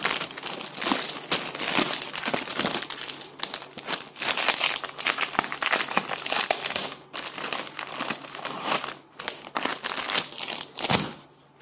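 Clear plastic bags being crumpled and handled by hand: continuous crinkling with a couple of brief lulls, dying away shortly before the end.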